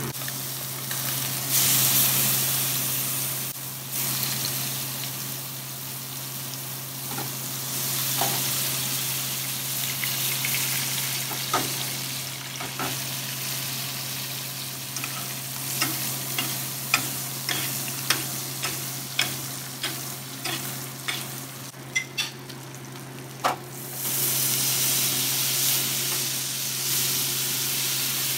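Branzino fillets frying in butter in a hot nonstick pan: a steady sizzle that surges louder about two seconds in and again near the end, with a run of sharp crackles and pops in the middle.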